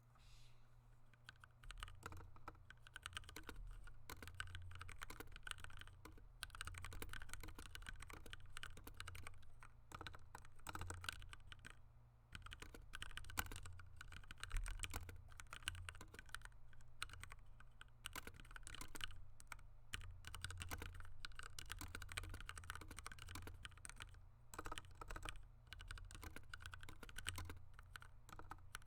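Typing on a Ducky One 2 Mini mechanical keyboard fitted with Cherry MX Black linear switches lubricated with olive oil: a continuous run of key presses, with a brief pause about twelve seconds in.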